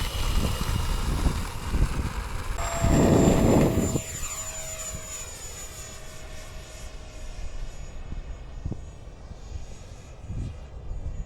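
Electric ducted-fan RC jet whining in flight, its pitch sliding slightly lower as it passes. Gusts of wind buffet the microphone over the first few seconds.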